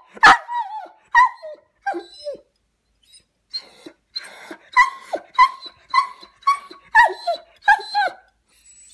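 Long-haired Weimaraner whining and yipping: about a dozen short, high-pitched calls, many falling in pitch at the end, with a pause about three seconds in and then roughly two a second. It is the whining of a dog upset at being parted from its companion dog.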